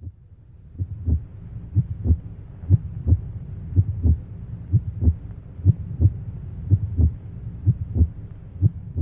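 A heartbeat: steady double thumps, lub-dub, about once a second (around 60 beats a minute), deep and low, over a faint low hum.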